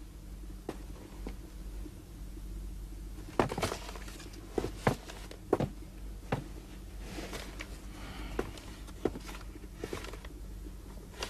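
Quiet room tone with a steady low hum and irregular small clicks and taps, a cluster of them about three and a half seconds in.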